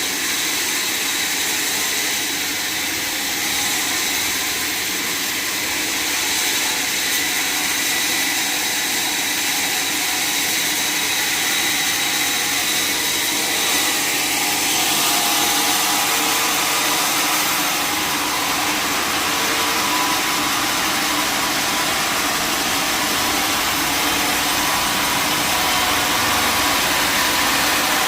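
Sawmill machinery running: a steady, loud mechanical noise with no breaks, growing slightly fuller about halfway through.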